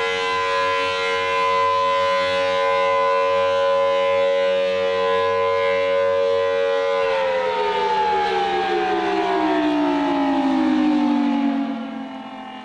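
Federal Signal Thunderbolt 1000T civil defense siren sounding its steady alert tone, then winding down about halfway through. The pitch falls steadily and the sound fades away near the end as the rotor slows.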